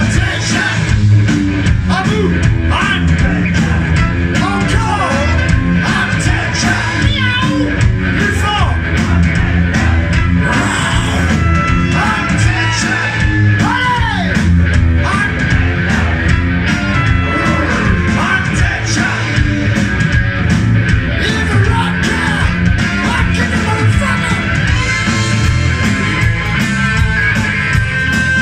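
Live rock band playing loudly: electric guitar, bass guitar and drums, with a singer singing and shouting into the microphone over them.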